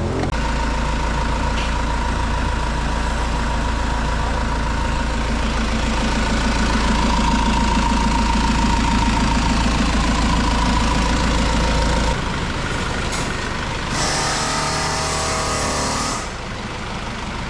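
A motor running steadily, cutting off abruptly about twelve seconds in, then a hiss of about two seconds.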